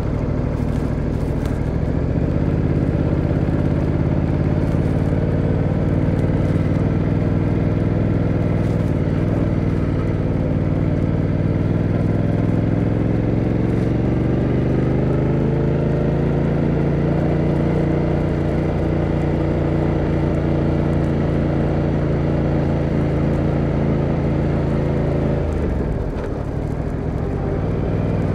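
Motorcycle engine pulling slowly in second gear, its revs climbing gently. Near the end there is a brief dip as the rider shifts up to third, and the engine settles at lower revs.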